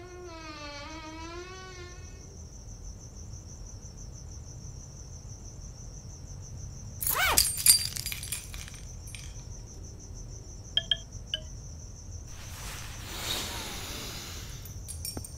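Steady high chirring of crickets as a night ambience. A short wavering voice-like call comes at the start, a sudden loud sharp sound about seven seconds in, and a few short clicks near eleven seconds.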